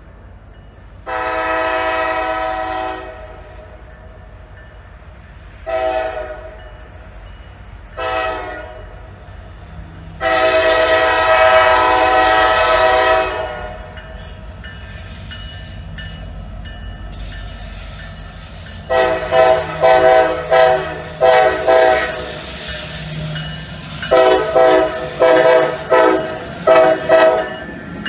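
Norfolk Southern diesel locomotive air horn, loud: a long blast, two short blasts and another long blast, then two runs of rapid short blasts a few seconds apart. The locomotive's engine and wheels rumble in close near the end as it passes.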